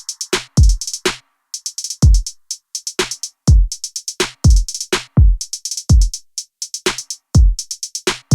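Electronic background music: a drum-machine beat of deep kick drums that drop in pitch, with quick runs of hi-hats between them.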